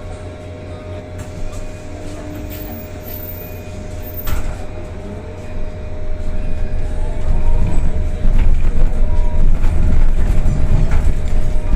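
A CRRC C10 battery-electric bus running, with a steady electric whine over road rumble. About halfway through the rumble grows much louder and a faint whine rises in pitch as the bus picks up speed, with a single knock a little before.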